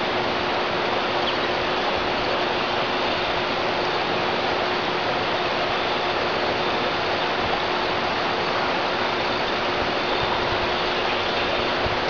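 Steady, even rush of flowing river water.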